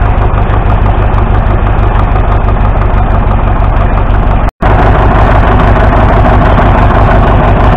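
Engine of an old International gas-start diesel tractor running with a steady, even firing beat, heard from the operator's seat. The sound cuts out completely for an instant about four and a half seconds in.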